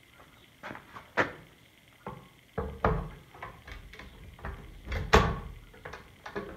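Irregular metal clunks and knocks as the handle is fitted onto the frame of an EZ-Tools 18-inch push reel mower, the loudest about five seconds in.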